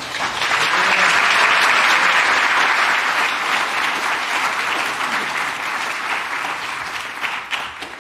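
A congregation applauding, swelling in the first second and slowly tapering off until it stops near the end.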